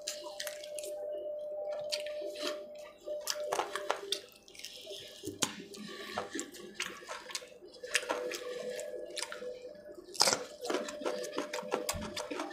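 Close-up wet chewing and lip-smacking of a mouthful of chicken liver eaten by hand, with irregular moist clicks and smacks and one louder smack about ten seconds in.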